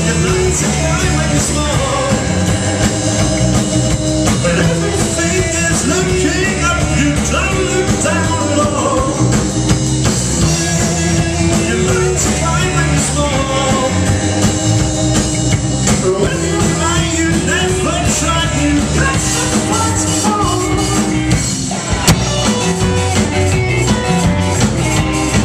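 Live rock band playing: two electric guitars, bass guitar and drum kit, loud and steady throughout.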